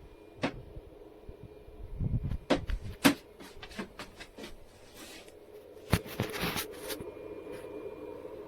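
A series of short clicks and knocks, the sharpest about three seconds in and a dense cluster around six seconds, over a steady low hum.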